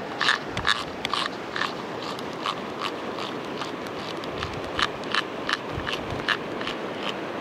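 Irregular clicks from a fly reel, a few a second, as a hooked brook trout is reeled in, over the steady rush of the river.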